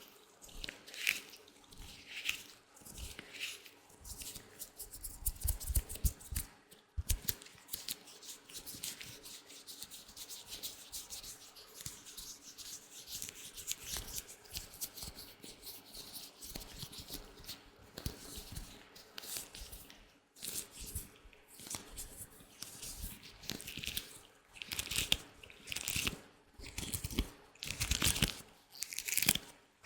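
Latex gloves being rubbed and handled, a continuous run of short rustling, scratching strokes. They come densely through the middle and as separate strokes near the end.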